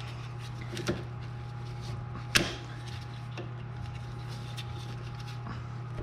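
A few sharp metallic clicks and knocks from tools and steering parts being handled, the loudest about two and a half seconds in, over a steady low hum.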